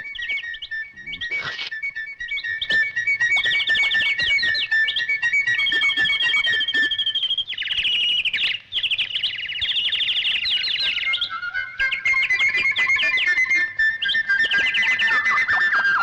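Cartoon nightingale song made as a sound effect: rapid chirping trills over held whistle-like tones, with some music. The held tones step down lower about two-thirds of the way through.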